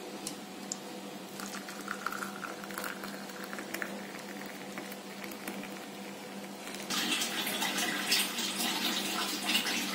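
Liquid being poured, then from about seven seconds in a louder, steady rush like a water tap running.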